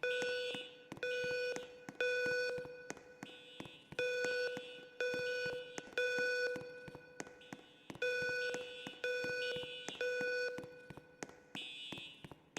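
School fire alarm system sounding its evacuation tone: three half-second beeps a second apart, then a pause, repeating every four seconds, the temporal-three evacuation signal. A fainter, higher-pitched tone sounds around and between the beeps.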